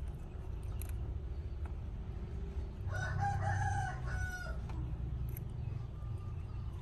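A rooster crows once, about three seconds in, a pitched call lasting a little under two seconds, over a steady low background rumble.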